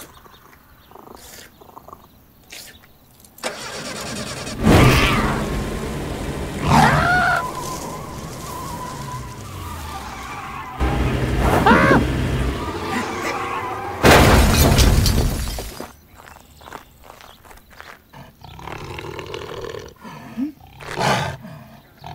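Animated-film sound effects: a car engine starting and running, with loud sudden bursts, and growls from a big cat near the end.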